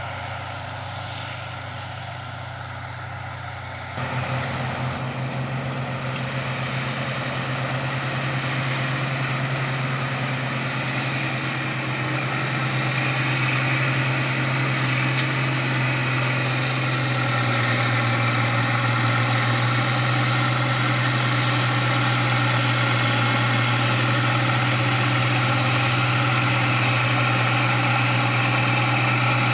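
Diesel engines of two International Harvester four-wheel-drive tractors running steadily under load while pulling chisel plows. The low drone jumps up about four seconds in, then grows gradually louder as the tractors draw nearer.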